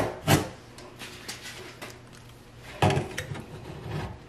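Utility knife blade scraping and cutting through the caulk seal along a sink's rim, loosening the sink for removal: a sharp stroke near the start, faint scratches, then a longer run of scraping about three seconds in.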